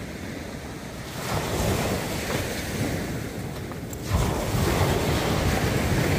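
Small surf breaking and washing up a sandy beach, with wind buffeting the microphone. A wave rushes in about a second in, and a louder one at about four seconds.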